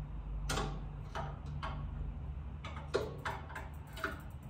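Irregular clicks and light knocks from a 1UP bike tray being worked by hand as a bike is secured on it, the sharpest about three seconds in.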